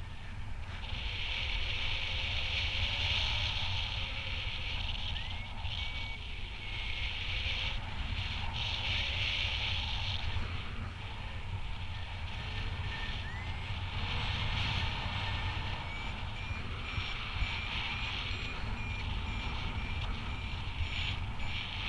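Wind rumbling steadily on the microphone in flight, with a paragliding variometer beeping: a few short rising chirps early on, then a steady run of short high beeps from about two thirds in, the vario's signal for rising air in a thermal.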